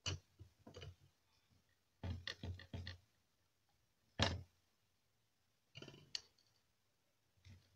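Handling noise: a string of short clicks and knocks as a soldering iron is set back in its stand and a circuit board is moved about on a wooden bench. There is a quick cluster about two seconds in and one sharper knock near the middle.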